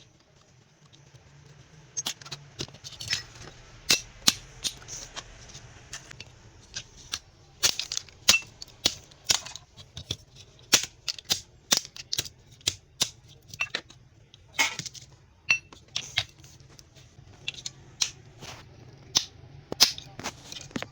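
Irregular sharp metallic clicks and knocks, about one or two a second, from tools working on a washing machine motor to cut its copper winding free, over a low steady hum.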